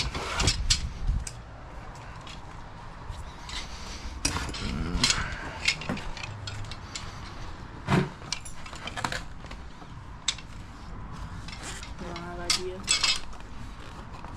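Tire levers clinking and scraping against a bicycle wheel rim in scattered sharp clicks as a stubborn tire is pried onto the rim.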